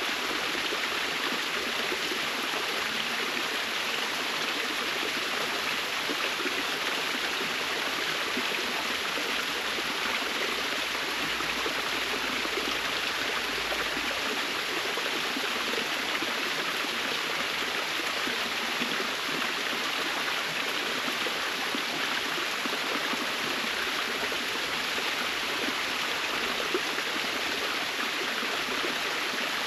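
Waterfall in a forest: water falling and splashing in a steady, unbroken rush.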